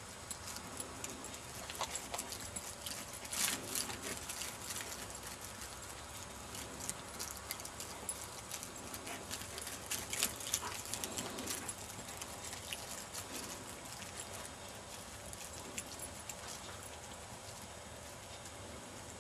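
Steps crunching and rustling through dry cereal stubble, a run of small irregular crackles, with louder rustles about three and a half and ten seconds in.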